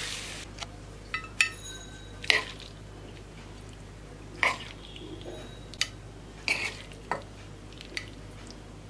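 Spatula knocking and scraping in a frying pan and against a plate while macaroni is dished out: about ten separate clicks and scrapes at uneven intervals, one knock about a second and a half in leaving a brief ring.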